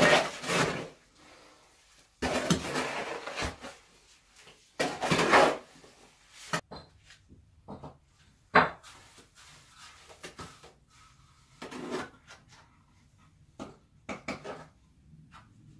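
Cement mortar being stirred in a rubber mortar tub with a long-handled tool: three long, gritty scraping strokes in the first six seconds. After that come scattered knocks and taps of a trowel and loose material, with one sharp knock about halfway.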